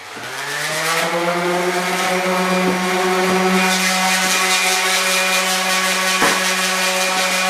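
Electric motor of a floor sander switched on, spinning up with a rising pitch over about a second, then running at a steady, loud hum.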